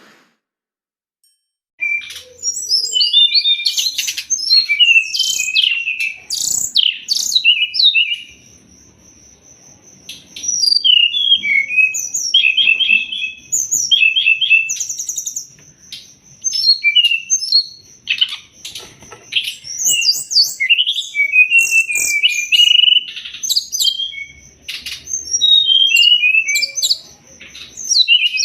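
Brown-chested jungle flycatcher (sikatan rimba dada coklat) singing a fast, varied chirping song in bursts with brief lulls, beginning about two seconds in. A thin steady high tone runs under much of it.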